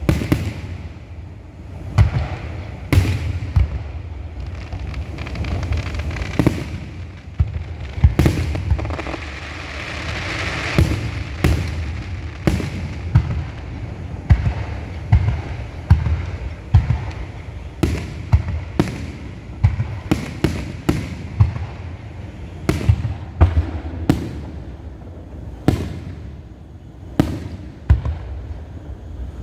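Fireworks show: a run of aerial shells bursting with sharp bangs, irregular and one after another, each trailing a low rumbling echo, with a spell of crackling about a third of the way through.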